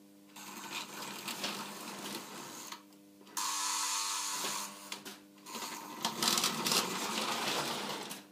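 Lionel O gauge toy train running on three-rail track: rolling wheel noise over a steady electrical hum, the rolling noise dropping out briefly twice.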